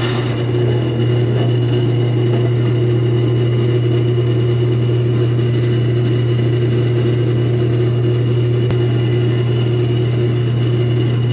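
Jet wood lathe motor running at a steady, turned-down speed with a steady hum, while a pen blank spinning on the mandrel is sanded with 180-grit mesh abrasive.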